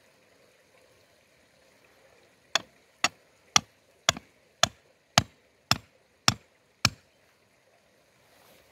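A steel rod used as a tent stake being hammered into the ground: nine sharp metallic strikes, about two a second, starting a couple of seconds in.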